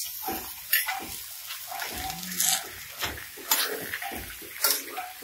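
Metal spatula scraping and knocking against a stainless steel wok as it stirs cubed raw pork: a handful of sharp scrapes roughly a second apart, over a faint steady hiss.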